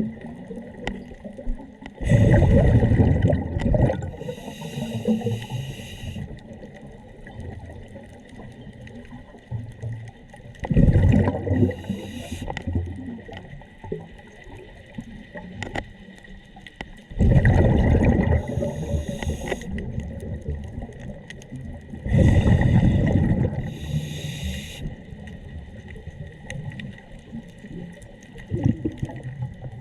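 Scuba diver breathing underwater through a regulator, four times. Each breath is a loud gush of exhaled bubbles, then a shorter hiss from the regulator.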